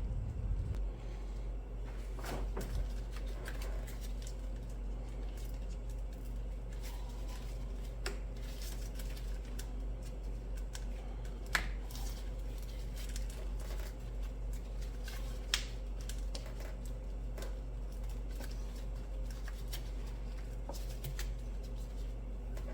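Small clicks, taps and rustles of hands fitting a new purge valve and pushing its hoses on, with two sharper clicks about eleven and fifteen seconds in, over a steady low hum.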